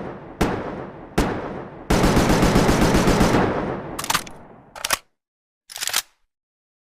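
Makeshift sound effect of AKM assault rifle fire. Two single shots with ringing tails, then a rapid fully automatic burst of about ten rounds a second lasting about a second and a half, followed by a few short sharp cracks.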